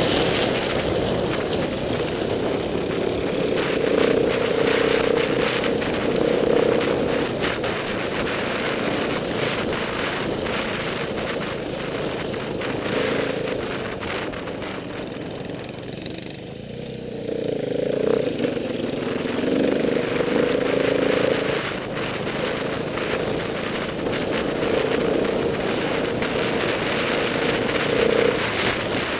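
Off-road dirt bike's engine, heard from the rider's own bike, running under changing throttle: it rises and falls, eases off about halfway through, then picks up again. Short knocks and clatter from the bumpy track run through it.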